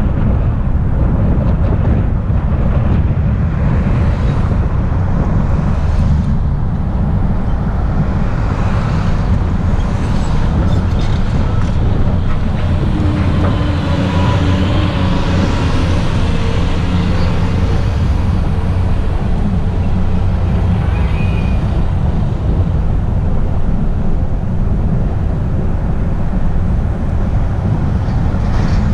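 Steady low rumble of a car driving along a paved street: engine and tyre noise, with wind on the microphone.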